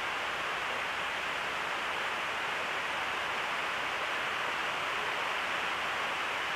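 A steady, even hiss of background noise, with no other sound over it.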